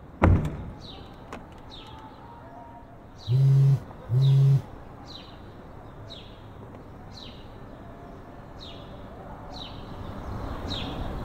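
A car door shuts with a single thump, then about three seconds later a mobile phone vibrates in two short buzzes, the alert for an incoming voice message. A bird gives a short falling chirp over and over, about once a second.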